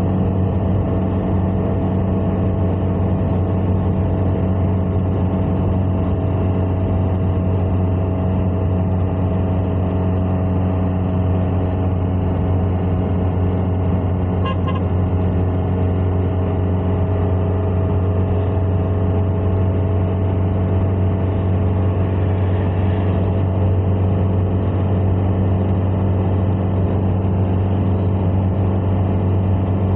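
Steady drone of a car being driven: engine and road noise at an even pace, with no change in speed.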